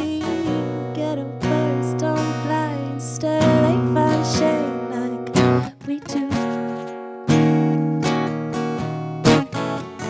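Acoustic guitar strummed and picked in a live song's instrumental passage between verses, with a wordless sung melody gliding above it in the first half. The playing stops briefly a little past the middle, then resumes with strong strums.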